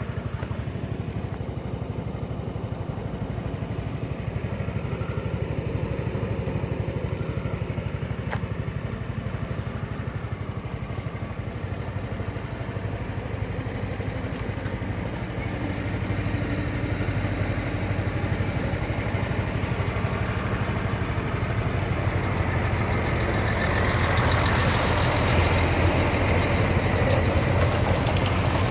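Honda SES 125 Dylan scooter's single-cylinder four-stroke engine idling steadily, a little louder near the end.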